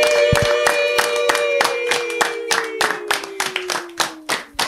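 Hands clapping quickly and steadily, about five claps a second, over a long held musical note that sinks slightly in pitch and stops just before the end.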